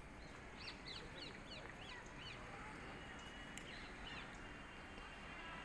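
A bird calling: a quick run of short, high chirps, about four a second for some two seconds, then a few more a little later, over faint background noise.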